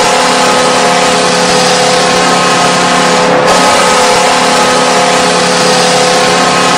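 Hockey arena goal horn blaring steadily over loud crowd noise.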